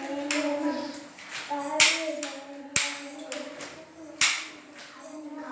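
Children's voices holding long, steady sung or hummed notes, broken by three sharp hand claps about a second apart.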